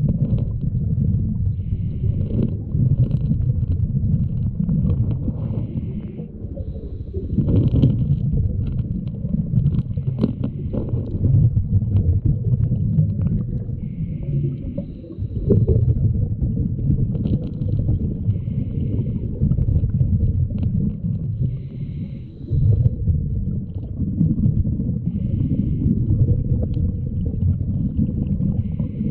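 Underwater sound of a scuba diver breathing through a regulator: a low rumbling gurgle of exhaled bubbles that swells and eases with each breath. Short, fainter higher-pitched tones recur every second or two.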